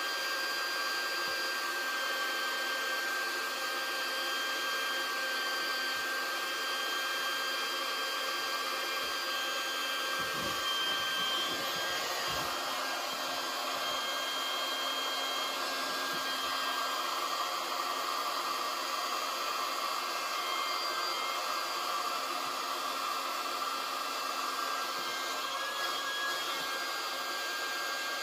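Electric air pump running steadily, blowing air into an inflatable boat's tubes, which are filling only slowly.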